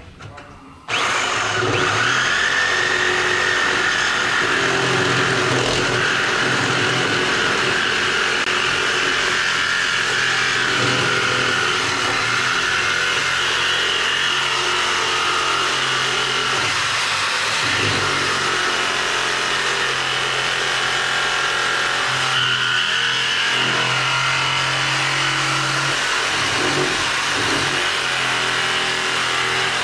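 Power cutting tool running steadily through the Saab 9-5's exhaust pipe to remove the cracked centre muffler, its whine rising and falling as it bites; it starts suddenly about a second in.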